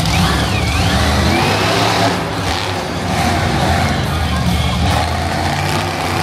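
Monster truck engine running loud and revving as the truck drives across the arena floor, a deep steady rumble that rises and falls with the throttle.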